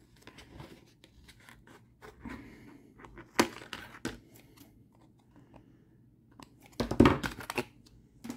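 Scissors snipping through a thin plastic sheet: a string of sharp cuts and crackles of the plastic. The loudest clatter of handling comes about seven seconds in.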